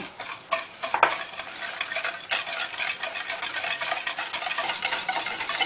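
Wire whisk beating a liquid mixture of egg, water, sugar and cornstarch in a stainless steel saucepan: rapid, continuous clicking and scraping of the wires against the metal pan. The whisking dissolves the sugar and cornstarch.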